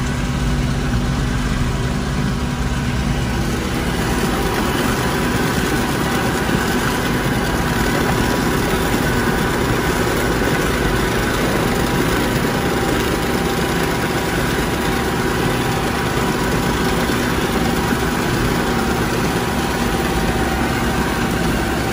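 John Deere 6300 tractor's diesel engine running steadily under load, heard from the cab, while it pulls a ditcher that cuts a ditch and throws soil.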